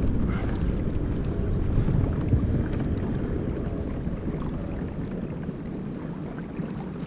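Wind noise on the microphone over open water, with water lapping around a kayak, gradually easing.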